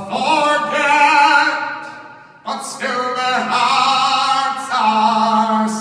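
A man singing a slow ballad live into a microphone, in long held notes. There are two drawn-out phrases, with a brief pause for breath about two seconds in.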